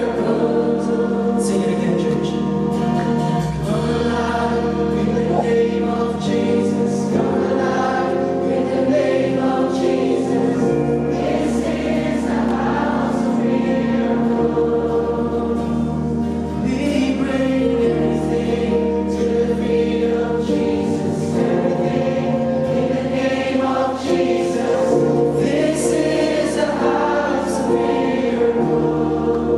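Gospel worship music: a group of voices singing over sustained instrumental chords.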